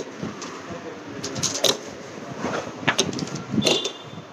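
Laptop packing box and its paper inserts being handled and rummaged through, with a few short rustles and taps.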